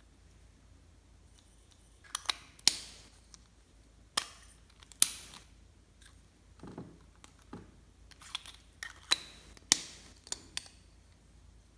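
Clear slime being handled and squished, giving about a dozen irregular sharp clicks and pops that start about two seconds in.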